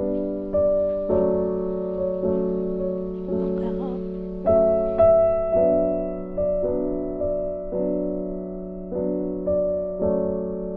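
Background music: a gentle piano tune, a new note or chord struck about every half second and left to fade.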